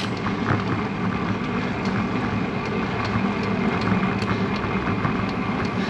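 Steady riding noise from a road bike under way: wind rushing over the action camera's microphone with the hum of the tyres on the pavement, and a few faint ticks.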